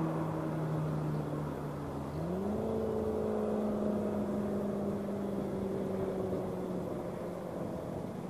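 A car's engine pulling away: its note rises in pitch about two seconds in as it accelerates, then holds steady and slowly fades as the car recedes.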